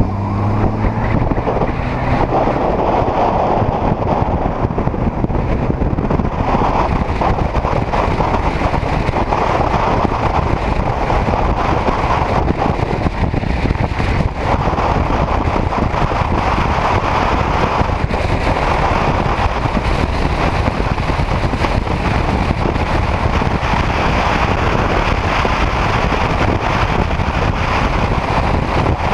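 Steady rush of wind on the microphone, with road and engine noise, from a touring motorcycle cruising at highway speed.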